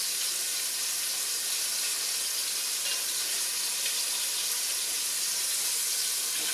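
Flour-dredged chicken pieces frying in olive oil in a pot, a steady sizzle.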